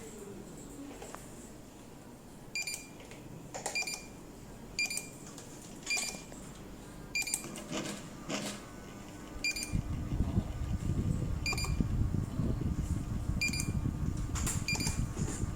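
Short electronic beeps from a ceiling fan remote receiver kit's buzzer, repeating about once a second at the same pitch. About two-thirds through, a low rumbling hum starts and continues.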